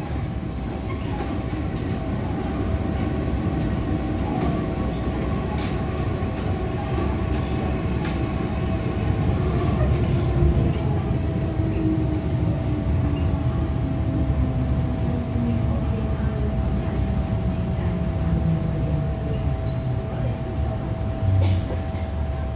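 MTR Island Line M-Train heard from inside the car as it brakes into a station: wheel and running-gear rumble with the traction motors' whine falling steadily in pitch as the train slows to a stop, over a steady electrical hum. A short low bump comes near the end.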